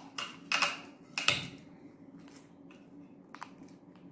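Sticky tape and paper handled as a rolled paper tube is taped: three short rustles in the first second and a half, then a few faint taps.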